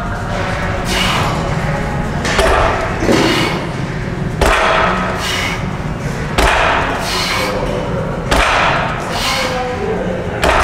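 Plate-loaded barbell being set back down on a power rack's safety pins between rack-pull reps: a heavy thud about every two seconds.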